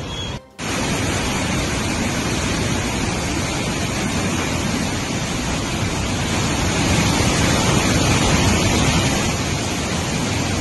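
Floodwater rushing through open dam spillway gates and churning below them: a loud, steady rush of water, with a brief break about half a second in.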